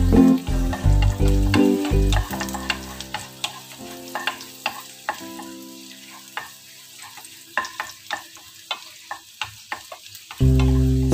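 Chopped garlic sizzling in oil in a nonstick wok while a spatula stirs it, with many sharp scrapes and taps against the pan over the frying hiss. Background music plays for the first two seconds or so and comes back near the end.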